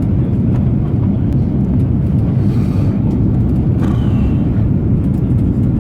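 Steady low rumble of an Airbus A330-300 airliner heard from inside the passenger cabin during landing.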